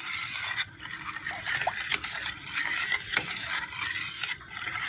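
A spoon stirring noodle soup in a pot, the liquid swishing and the spoon scraping against the pot with a few sharp clicks.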